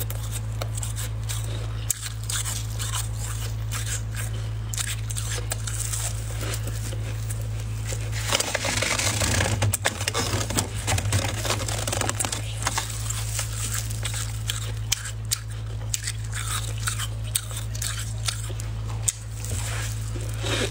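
Freezer frost crunching as a plastic-gloved hand scoops and squeezes it in a metal pot, with the densest, loudest crunching for a few seconds around the middle, and scattered crisp crunches of frost being bitten. A steady low hum runs underneath.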